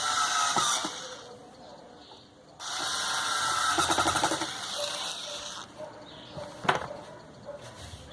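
A small power tool's motor whining in two bursts: one cutting off just under a second in, the other running about three seconds with a fast rattle. A single sharp click follows near the end.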